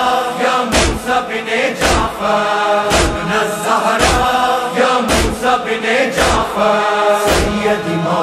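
Voices chanting a noha refrain in chorus, over a heavy, even thump about once a second.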